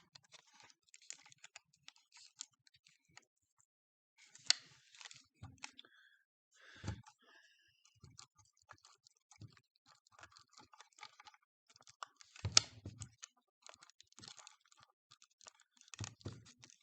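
Irregular clicks and rattles of plastic battery-pack parts being handled during a teardown, with a few louder knocks about four and a half, seven, twelve and a half and sixteen seconds in.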